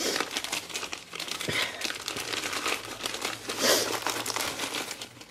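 Christmas wrapping paper crinkling and rustling as a small gift is unwrapped by hand, with a louder crackle about three and a half seconds in.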